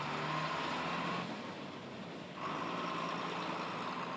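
Refrigerated box truck's engine running as it pulls away, with a steady high tone over the engine noise that drops out for about a second midway.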